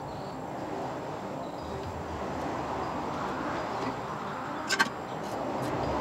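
Steady background noise with two sharp clicks in quick succession about three-quarters of the way in, from hand tools and the serpentine belt being handled in the engine bay.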